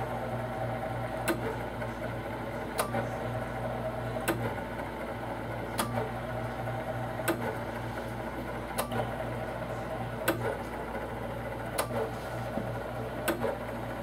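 Screen-separation machine running: a steady hum with a sharp click repeating evenly about every one and a half seconds.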